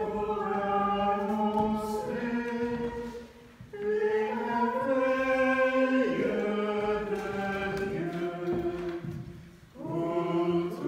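Voices singing a slow chant-like sacred melody in long held notes, breaking off briefly about three and a half seconds in and again near the end.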